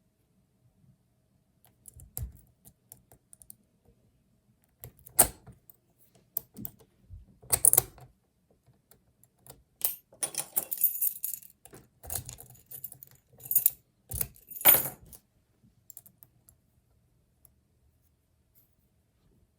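Metal lock picks and a tension wrench working in a Master Lock Magnum pin-tumbler padlock held in a vise, with irregular clusters of small metallic clicks and rattles and a few sharper clacks.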